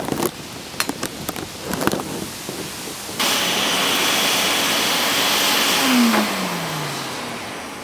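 A few light knocks. About three seconds in, the charcoal forge's air blower starts with a steady rushing hiss and a thin high whine. Near six seconds in it is switched off and its motor winds down in a falling hum as the rush fades.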